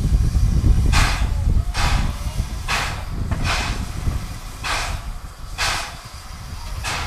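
Steam locomotive working, its exhaust chuffing in separate hissing beats about once a second over a low rumble, the whole growing fainter.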